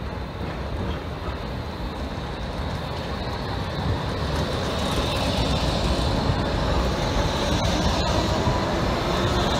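Crotram TMK 2200 low-floor electric tram passing close by, its running noise on the rails growing louder as it nears. A high steady whine joins in about halfway through.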